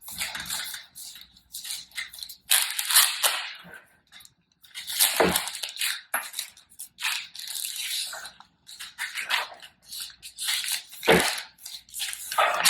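Irregular rustling and crinkling of packaging being handled while a MacBook Pro is unboxed.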